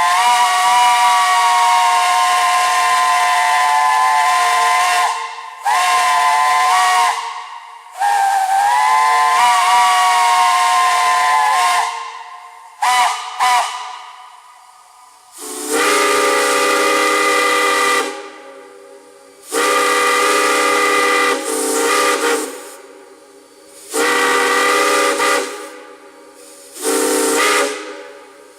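Multi-chime steam whistles blown in a series of long blasts with a couple of short toots. A higher-pitched chime whistle sounds first, then from about halfway through a lower, deeper-toned whistle gives four more blasts.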